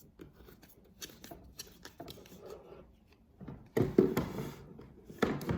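Handling noise from craft supplies on a table: faint clicks and taps, then a louder rustling clatter about three and a half seconds in and a shorter one near the end.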